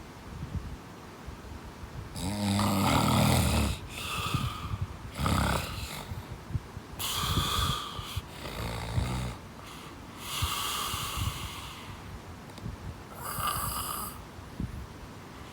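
Someone snoring in sleep: a string of noisy breaths a second or two apart, some with a deep buzzing snore. The loudest snore comes about two seconds in.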